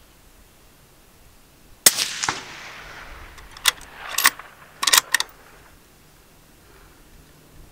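A single shot from a Ruger American Gen II bolt-action rifle in .223 Remington about two seconds in, with a trailing echo. It is followed by a quick series of sharp metallic clicks as the bolt is worked to eject the case and chamber the next round.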